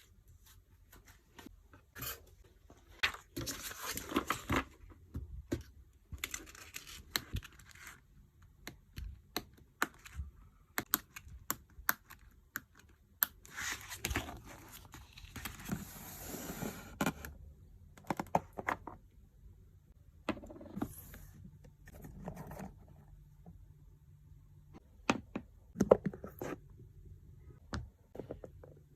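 Hands working with washi tape and packing materials on a desk: scattered small clicks and taps, with a few stretches of rustling, peeling tape noise lasting a second or two.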